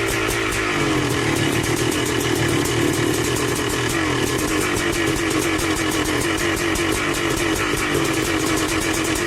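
High-compression 512cc single-cylinder two-stroke motorcycle engine running steadily, its pitch wavering slightly with light throttle changes.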